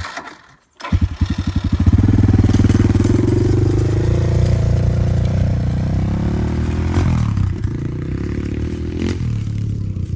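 Kawasaki KX450F single-cylinder four-stroke dirt bike engine catching about a second in, revving up quickly and then running hard and loud, with two brief dips in the note later on.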